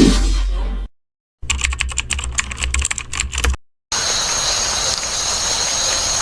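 Rapid keyboard typing clicks for about two seconds over a low hum, after the tail of intro music cuts off; then, after a brief silence, a steady hiss with two high whining tones that runs for about three seconds.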